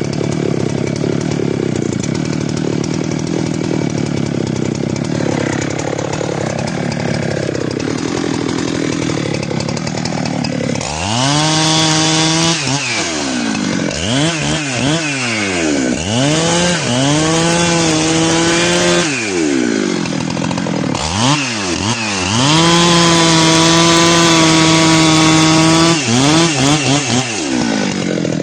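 Chainsaw felling a tree: the engine runs steadily under load for about the first ten seconds, then revs up and down repeatedly, held at high speed for a few seconds at a time.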